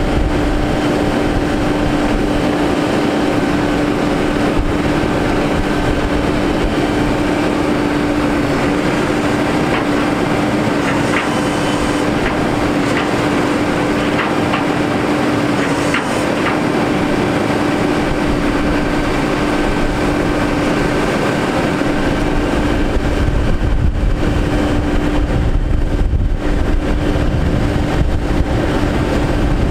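Crane truck's Cummins ISX diesel engine running steadily while driving the hydraulics of its Altec telescopic crane as the boom swings and raises, with a steady droning tone throughout. A deeper rumble comes in about two-thirds of the way through.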